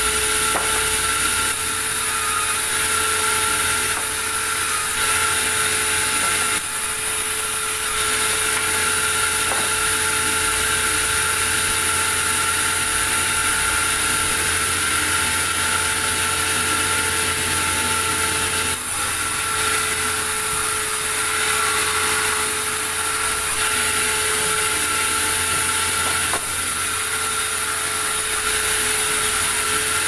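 Large band sawmill running with a steady high whine, its blade ripping lengthwise through a log with a dense hiss.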